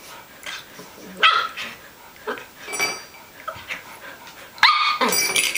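Shetland Sheepdog puppy barking: a string of short, high-pitched barks, the loudest near the end.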